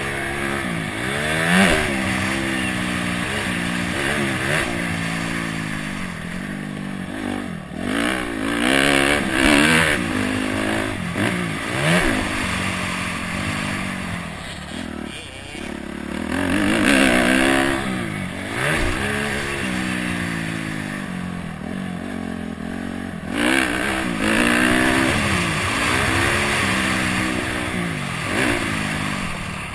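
Honda CRF250X's single-cylinder four-stroke engine being ridden hard on a motocross track. The engine note rises and falls again and again, every second or two, as the throttle is opened and closed.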